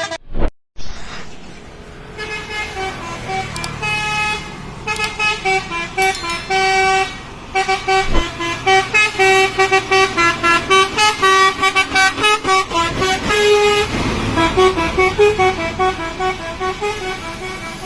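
Telolet musical bus horn playing a quick tune of short pitched toots, several tones sounding together and stepping up and down note by note. There is a brief gap about half a second in.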